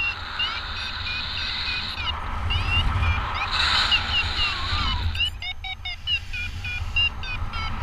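Paragliding variometer beeping in short rising chirps, about two to three a second, bunching faster about five seconds in: the climb tone of a glider rising in lift. Steady wind rumble on the microphone underneath.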